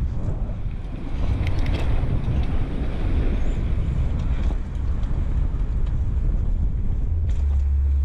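Wind buffeting the microphone of a bicycle rider on a fast downhill, with a low steady rumble and a few short rattling clicks about a second and a half in.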